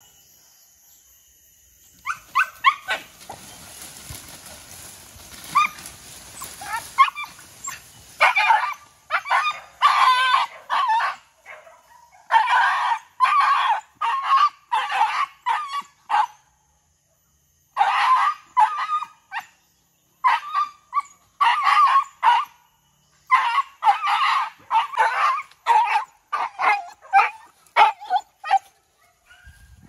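Hunting dogs barking over and over in quick runs of short, sharp barks, with a break of about a second and a half near the middle.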